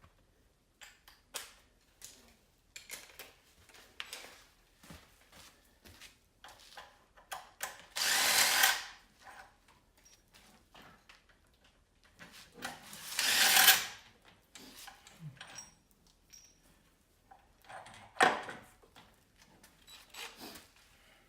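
A power tool runs in two short bursts of about a second each, about four seconds apart. Light clicks and knocks come in between.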